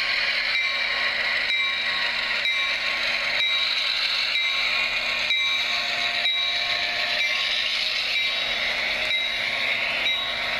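HO-scale NJT F7A model locomotive running past with its ESU LokSound decoder playing EMD 567 diesel sound through the model's small speaker, with a ringing tone repeating about every two-thirds of a second.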